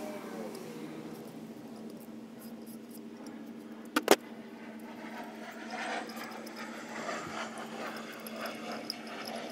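A long ratchet is set down on a plastic folding table with two sharp metallic clacks about four seconds in, over a steady background hum. After that come irregular clinks and rustling as cylinder-head parts are handled.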